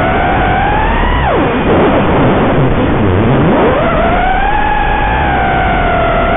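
FPV racing quadcopter's brushless motors whining, the pitch rising and falling with the throttle. About a second in, the whine drops away sharply as the throttle is cut, then climbs back up over the next couple of seconds, over a steady hiss.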